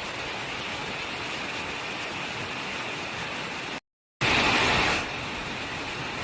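Steady outdoor hiss with no clear pitch, broken by a dead-silent gap about four seconds in and then a brief, louder surge of the same hiss before it settles back.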